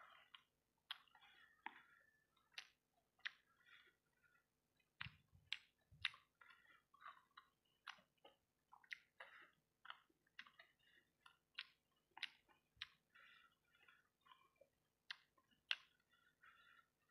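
Quiet close-miked chewing of sauce-coated fried rice balls: wet mouth clicks and smacks, about two a second.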